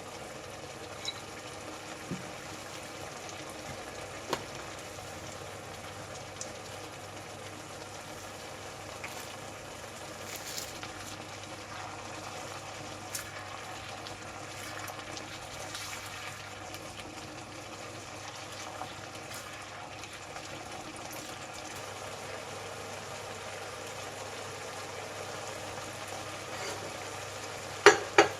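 Steady bubbling and sizzling of food cooking on the stove, with a few light clicks and two sharp knocks near the end.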